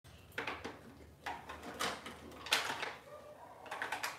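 Several short rustling and knocking sounds of small objects being handled, unevenly spaced, the loudest about two and a half seconds in.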